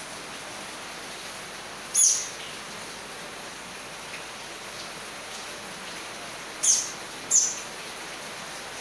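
Three short, high-pitched chirps over a steady hiss: one about two seconds in, then two close together near the end.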